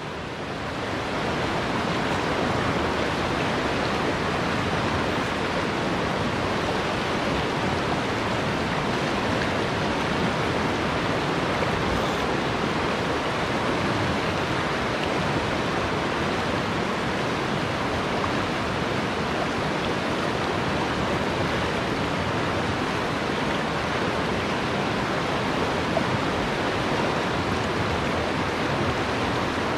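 Steady rush of a fast, shallow river running over rocks and riffles.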